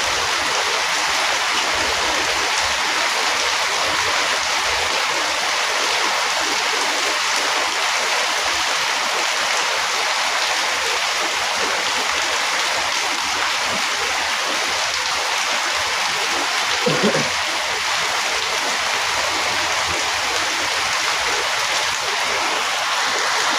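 Rain falling steadily, an even hiss with no let-up. About two-thirds of the way through, a brief pitched sound stands out over it for under a second.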